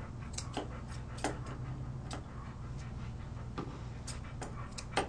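Grooming scissors snipping the coat on an Airedale terrier's foot and leg: sharp single clicks at irregular spacing, a few in each second near the end, over a steady low hum.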